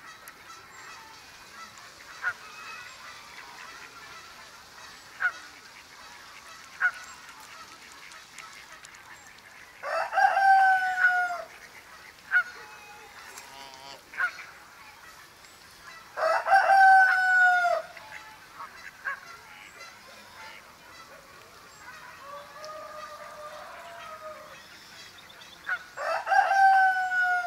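Farmyard fowl calling: three loud drawn-out calls, each about a second and a half long and dropping in pitch at the end, with a softer call between them and a few short sharp calls earlier, over faint countryside background.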